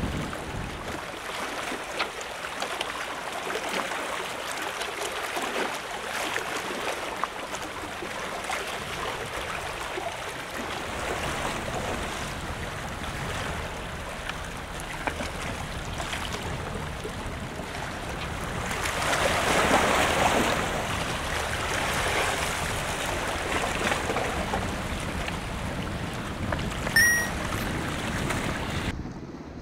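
Sea waves washing against a seawall, a steady wash that swells louder about two-thirds of the way in. A brief high chirp sounds near the end.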